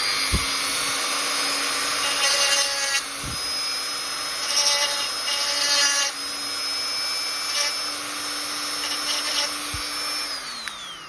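Small electric drill running at steady high speed, widening a hole in a doll's hard polystyrene torso. The bit grinds against the plastic in several short spells, and the motor winds down with a falling whine near the end.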